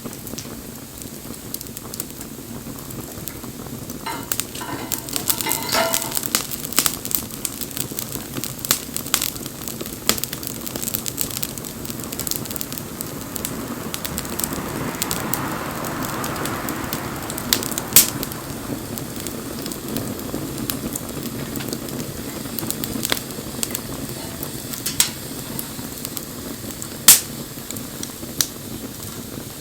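Wood bonfire burning, crackling steadily with scattered sharp pops. Two louder pops stand out, about two-thirds of the way in and near the end.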